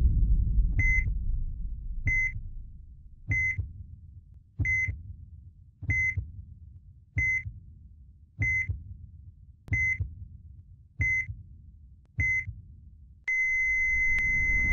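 Heart-monitor sound effect: a short high beep with a deep heartbeat thump about every 1.3 seconds, ten times. About 13 seconds in it turns into one unbroken flatline tone, the sign that the heart has stopped.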